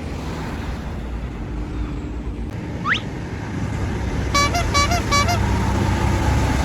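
Vehicle horn giving four quick short toots over a steady low engine rumble, with a brief rising whistle a second or so before.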